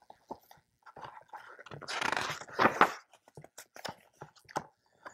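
Pages of a hardcover picture book being handled and turned: paper rustling and crinkling with small clicks and taps, loudest about two to three seconds in.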